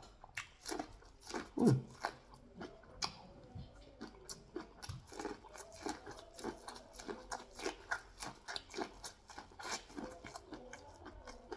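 Close-miked chewing of crunchy food, sweet corn or pear: many short crisp crunches and mouth clicks, a few each second, in an uneven rhythm.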